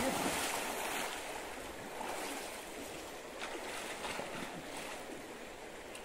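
Swimmers splashing in a river pool, loudest at the start, then easing into a steady wash of moving water.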